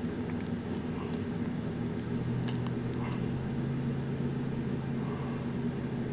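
A steady low mechanical hum with a constant low tone that grows stronger about two seconds in, with a few faint clicks of a plastic capsule and slime cup being handled.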